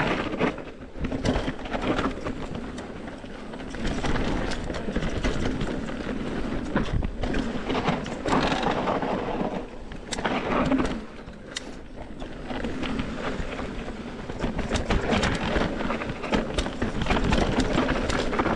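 Mountain bike rolling fast down a dirt trail, with wind rumbling on the microphone and the bike rattling and knocking over bumps. The noise swells and dips as the speed changes.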